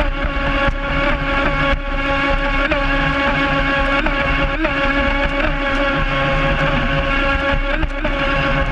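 Brushless electric motor of a small RC speedboat running at speed, recorded on board: a steady high-pitched whine over the rushing hiss of water and spray. The pitch dips briefly a few times.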